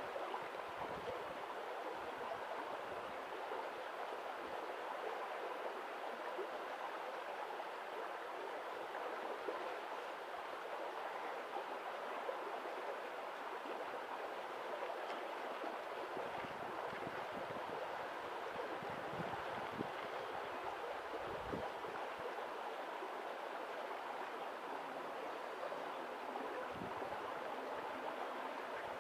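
Steady rushing of running water, with a few soft low thumps in the second half.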